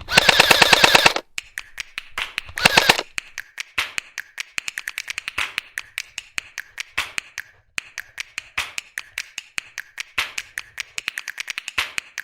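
Airsoft guns firing: a full-auto burst of about a second at the start and a shorter burst about two and a half seconds in, followed by a long run of sharp single shots and short strings, several a second.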